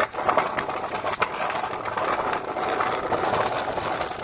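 Plastic toy dump truck pushed across rough concrete, its hard plastic wheels rolling with a steady rattle, with a few sharper clicks near the start and about a second in.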